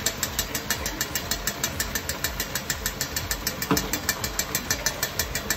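Steady mechanical ticking, about five to six even ticks a second over a low hum, with one brief pitched sound about three and a half seconds in.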